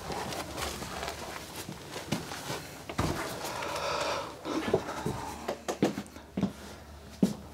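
Rustling and handling noise of someone moving about inside a small room, then a run of short, dull knocks about half a second apart in the second half.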